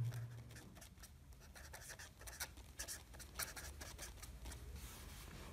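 A pen writing on paper: faint, irregular scratching strokes as the words are written out.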